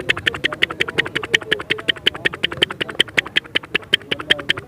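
A man imitating an electric water pump motor running with his mouth: a rapid, even clicking at about nine a second over a wavering nasal hum.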